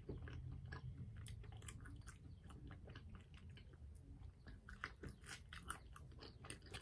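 A person chewing fast food close to the microphone: faint, irregular crunchy clicks of chewing, with a bite into a french fry near the end.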